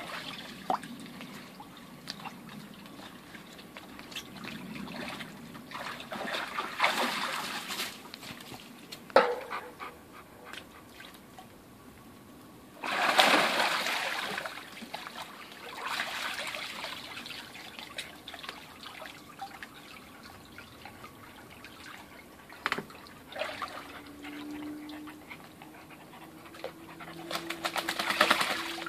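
A dog wading and pawing in shallow water in an inflatable paddling pool, splashing in several surges, the loudest about thirteen seconds in and another near the end, with quiet trickling between.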